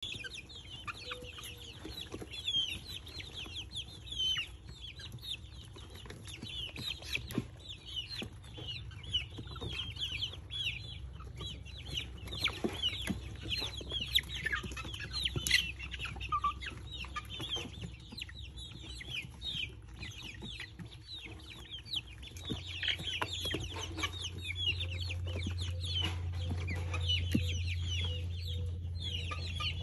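A brooder full of young Cochin and Appenzeller Spitzhauben chickens peeping and chirping: many short, high, falling calls overlapping continuously. Under them runs a steady low hum that grows louder about two-thirds of the way through.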